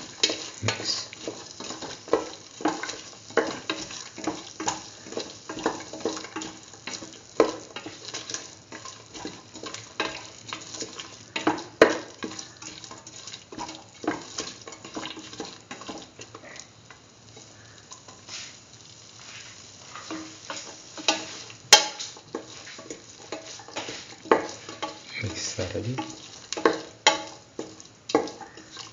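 A utensil scraping and clacking against a metal pan as chickpeas and bell pepper pieces are stirred in a thick masala, with a light frying sizzle. The strokes come irregularly and ease off for a few seconds past the middle.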